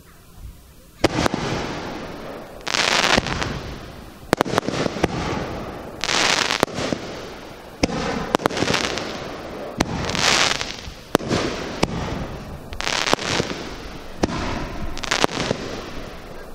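Aerial firework shells bursting overhead: a string of sharp bangs every second or two, starting about a second in, with a rushing hiss swelling after several of them.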